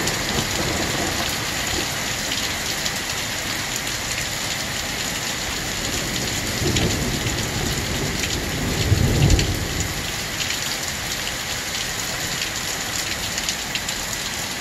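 Hail falling steadily on pavement and yard, a dense hiss of many small clicks, with a low rumble that swells twice around the middle, the second, about nine seconds in, the loudest.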